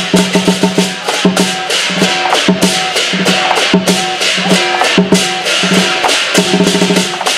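Lion dance percussion: a large Chinese drum beaten in a fast, steady rhythm with clashing cymbals, the rhythm driving the lion's movements.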